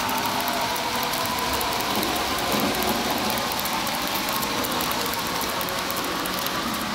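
N gauge model train running on the layout track: a steady small-motor hum with fine, rapid ticking of wheels on the rails.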